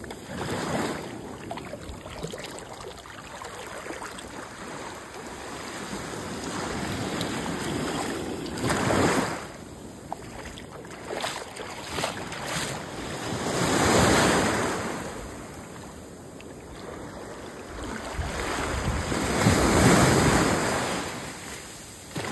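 Ocean surf breaking and washing up the beach. Three big swells come about 9, 14 and 20 seconds in, with quieter wash between them.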